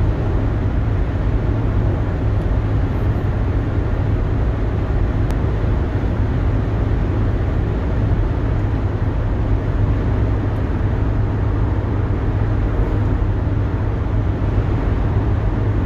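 Steady low rumble of a vehicle heard from inside its cabin, engine and road noise running evenly throughout.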